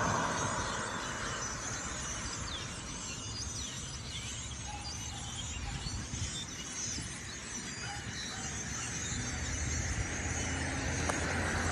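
A large flock of birds chirping and calling, with many short high calls overlapping, over a steady low rumble of road traffic.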